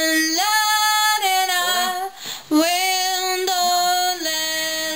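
A woman singing slow, long held notes into a microphone during a vocal take. She breaks briefly for a breath about two seconds in.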